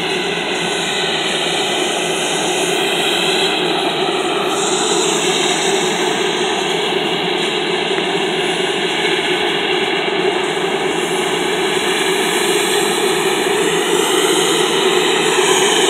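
Sikorsky S-92A helicopter running on the ground, its twin GE CT7-8A turboshaft engines giving a loud, steady turbine rush with a slowly wavering hiss.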